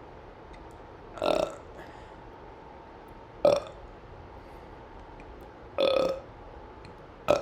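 A person burping: four short burps, roughly two seconds apart, the last one right at the end.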